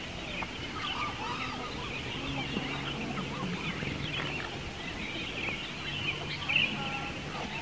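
Many birds chirping and calling at once, short overlapping calls, with one louder call near the end. A faint low hum comes and goes underneath.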